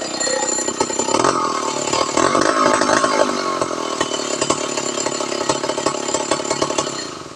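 Two-stroke chainsaw running at high revs, its engine note swelling and easing, then dying away near the end.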